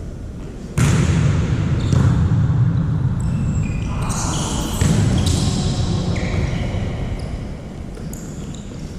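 Indoor volleyball play: ball thuds and short high squeaks, over a heavy, steady din of the hall.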